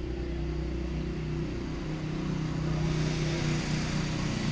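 A steady mechanical hum, a low engine-like drone with a few held tones, growing slightly louder over the few seconds.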